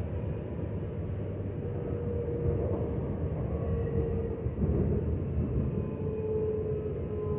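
Dutch Sprinter electric commuter train running at speed, heard from inside the carriage: a steady rumble of wheels on track with a faint whine over it.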